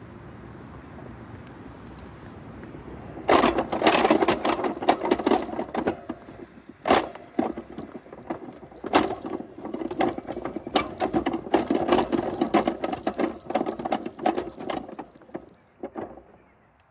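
Loaded flatcar of a 7¼-inch gauge miniature railroad train clattering and rattling on the track as it moves, with many sharp clicks. A steady low rumble comes first; the clatter starts about three seconds in and dies away near the end.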